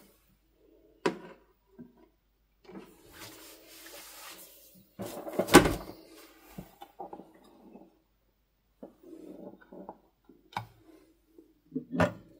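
Hands handling a clear plastic tray and the things on it: scattered taps, knocks and rubbing on hard plastic, with the loudest knock a little past the middle and another sharp one near the end.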